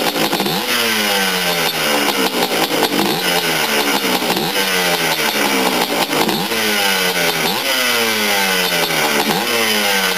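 Yamaha Blaster's single-cylinder two-stroke engine revved in repeated throttle blips, about one every second and a half: each time the pitch jumps up sharply, then slides back down. The freshly rebuilt engine is being run through a break-in heat cycle.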